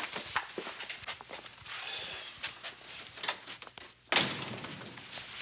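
Light footsteps and movement, then a door shut hard with a loud slam about four seconds in.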